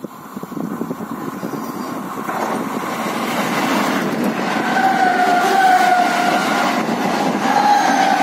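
Siemens electric multiple unit local train passing close by, its running rumble on the rails growing louder over the first half. From about halfway through a wavering high whine runs over the rumble.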